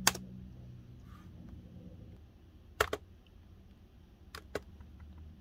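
Clicks from a Lenovo L440 laptop's controls while it steps through an installer: one click, then two quick double clicks about a second and a half apart.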